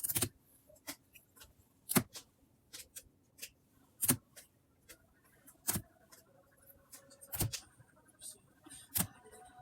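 Trading cards being handled: a sharp click about every second and a half to two seconds, with fainter ticks between.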